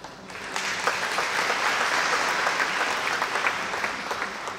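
Audience applauding: many hands clapping, swelling about half a second in and dying away near the end.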